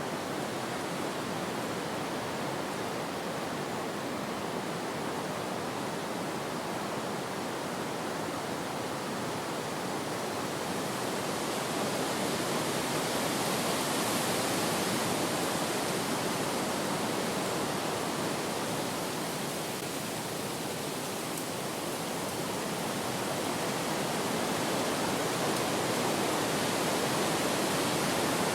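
Wind blowing as a steady rush of noise, swelling a little about halfway through and again near the end.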